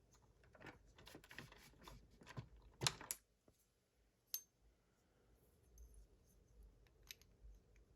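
Small metallic clicks and clinks of a picked lock and its tools being handled as it is taken apart. The loudest clink comes about three seconds in and a single sharp click a little after four, with a few faint ticks later.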